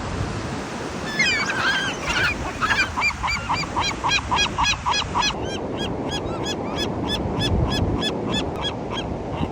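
Seagulls calling: from about a second in, a long run of short, repeated calls, about three a second, over a steady rushing noise.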